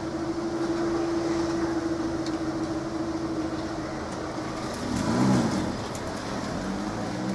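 Level crossing barrier mechanism running with a steady hum as the road barriers lift to upright, stopping about two-thirds of the way in. Then a car pulls away across the crossing, its engine swelling briefly over the idle of waiting traffic.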